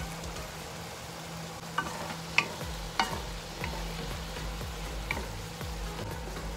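Wooden spatula stirring simmering meat, shrimp and vegetables in a non-stick wok, over a steady sizzle of the food cooking in a little broth. A few sharp knocks of the spatula against the pan come from about two seconds in.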